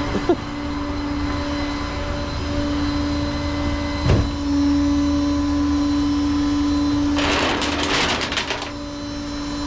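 Tow truck running at the curb with a steady humming whine. About four seconds in there is a short knock, and from about seven seconds in a rough, rattling hiss lasts about a second and a half.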